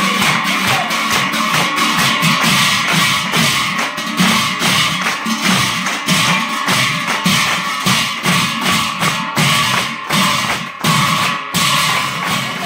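Large bell-metal hand cymbals (bortal) struck together in a fast, even beat of about three to four strokes a second, the metal ringing on between strokes, with hand-clapping keeping time, as accompaniment to nam-prasanga devotional singing.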